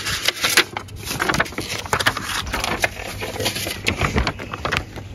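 Paper instruction sheet rustling and crinkling as it is picked up and handled, a dense run of crackles.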